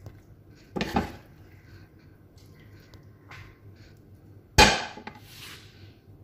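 Metal spatula knocking and scraping against a frying pan and a plate as stir-fry is served, with two loud clatters, the louder about four and a half seconds in, and a few light clicks between.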